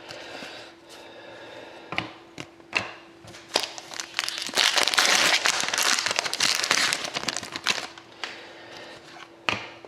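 Crinkling of plastic and foil packaging as trading cards are handled, with a few sharp clicks and taps and a dense stretch of crinkling from about four and a half to eight seconds in. A faint steady hum runs underneath.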